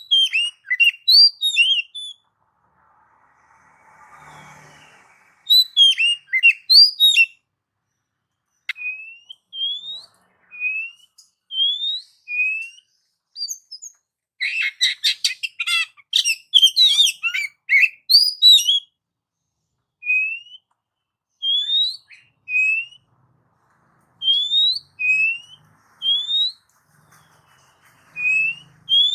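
Oriental magpie-robin (kacer) singing in separate phrases with silent gaps: quick twittering bursts, runs of single rising whistled notes, and a dense rapid chattering phrase near the middle.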